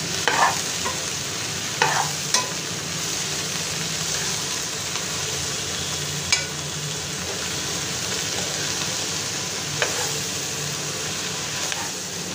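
Chopped jackfruit and onions frying in oil in a kadai with a steady sizzle, while a metal ladle stirs them, clinking sharply against the pan about six times.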